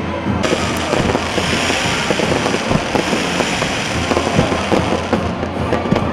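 Fireworks crackling and popping densely over a steady hiss, starting abruptly about half a second in.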